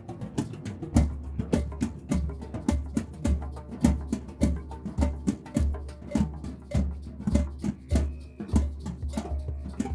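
Drum circle: many hand drums playing a fast, dense rhythm together. About a second in, a deep bass pulse joins, falling roughly every half second.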